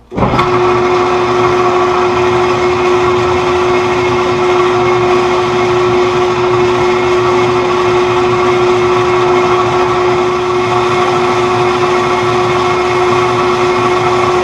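Metal lathe running steadily, its gear train giving a constant whine over the machine hum.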